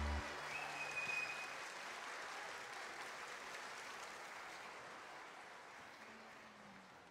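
The sung music cuts off right at the start, followed by an audience applauding, the applause slowly fading away.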